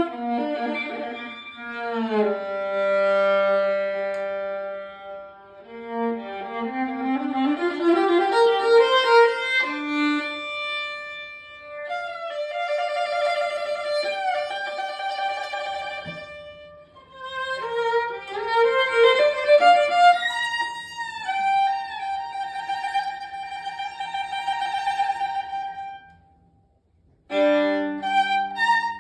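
Violin playing a lyrical melody with long held notes, sliding pitches and quick rising runs. The playing stops for about a second near the end, then starts again.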